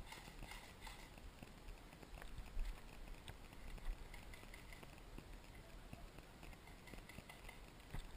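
Faint, scattered footsteps and small taps, with low rustling.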